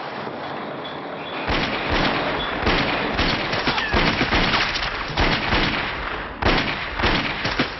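Heavy gunfire: a rapid, dense run of shots begins about a second and a half in and keeps going, with a brief lull a little after six seconds before more shots.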